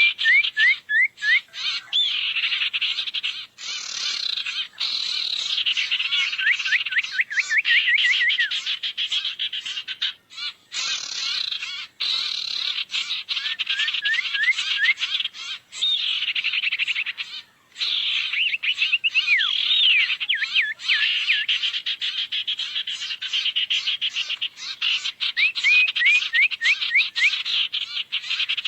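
Lure recording of the sirtu bird's call: a fast, continuous rattling trill, broken every few seconds by a run of quick rising chirps.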